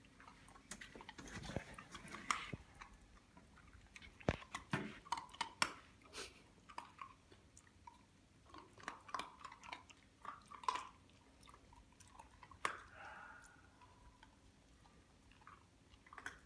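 Puppies crunching dry kibble off the floor: faint, irregular crunches and clicks, with a few sharper ones.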